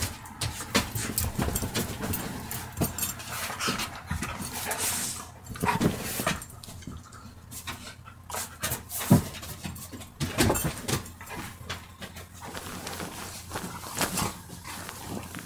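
Two dogs play-fighting: a busy, irregular run of short growls and snaps, with panting in between.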